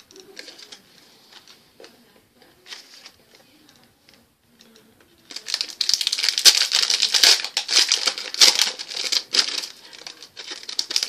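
Plastic hockey card pack wrapper crinkling as it is handled, with only faint rustles at first and a loud, dense stretch of crinkling from about five seconds in.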